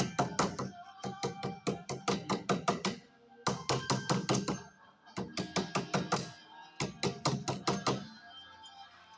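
Rapid knocking in four runs of about a second each, six or seven sharp knocks a second, with music playing in the background.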